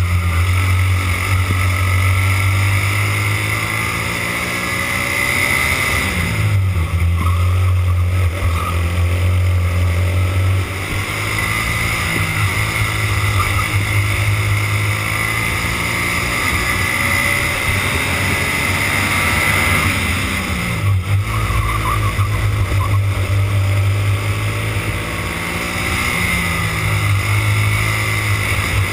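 Racing kart engine heard from onboard at race pace. The revs rise gradually, fall sharply twice and climb again each time.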